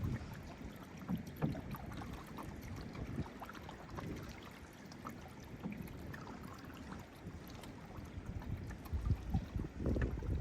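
Canoe paddling on open water: irregular soft paddle dips and water splashing and knocking against the hull, with wind gusting on the microphone near the end.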